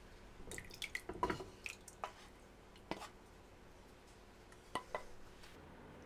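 Mapo tofu scraped from a frying pan into a ceramic bowl on a stainless steel counter: a run of light knocks, clinks and wet plops in the first three seconds, then two quick clicks a little before five seconds.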